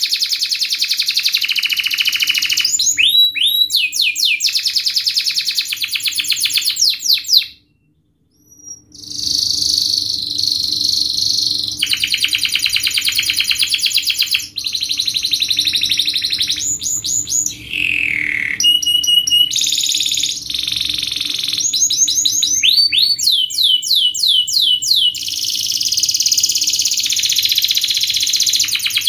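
Domestic canary singing long runs of very fast, tightly repeated trill notes, moving between rolled phrases and quick sweeping glides. The song breaks off for about a second around eight seconds in, then resumes, over a faint steady low hum.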